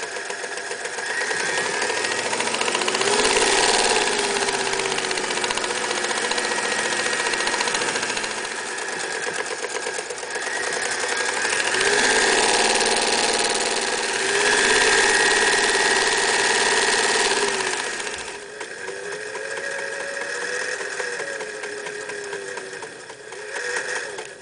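Singer 99K electric sewing machine running, stitching through denim. Its motor speeds up and slows down several times, and it runs quieter and slower after about three-quarters of the way in.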